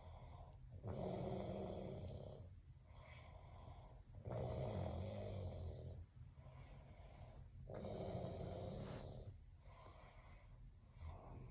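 A man snoring in his sleep: three loud snores about three and a half seconds apart, each lasting about a second and a half, with quieter breathing between them.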